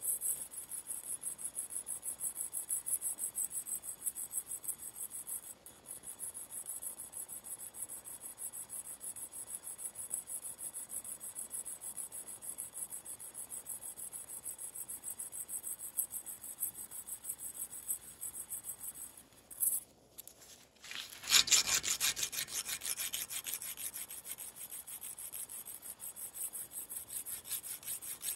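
A steel hand file rasping in quick, even back-and-forth strokes across the claw of a steel claw hammer head held in a vise. The strokes break off briefly about twenty seconds in, then resume louder.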